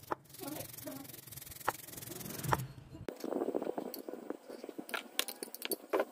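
Rubbing and scraping handling noises with scattered sharp clicks. About three seconds in the sound changes abruptly: a low hum and steady hiss stop, and quicker clicks and rustling follow.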